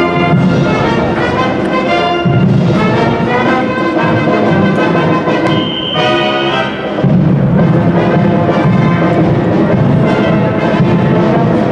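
Marching brass band playing a march, with heavy low brass and drums.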